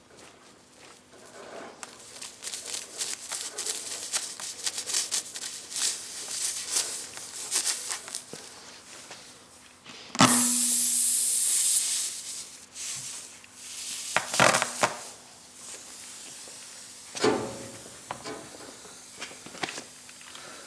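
Tyre repair kit's reaming tool rasping in and out of a puncture in a tubeless tyre, many irregular scraping strokes. About halfway through comes a loud hiss lasting about two seconds, followed by a few knocks.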